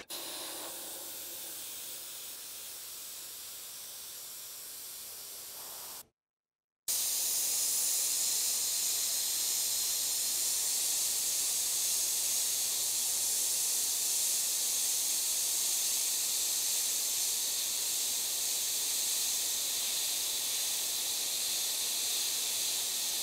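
Gravity-feed airbrush spraying paint: a steady hiss of air. It is quieter for about the first six seconds, breaks off for under a second, then comes back louder and steady.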